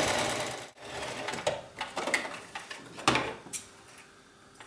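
Electric sewing machine running at speed, overcasting a seam with a zigzag stitch, then stopping abruptly less than a second in. Rustling and clicks follow as the fabric is drawn out from under the presser foot, with a few sharp snips as scissors cut the threads near the end.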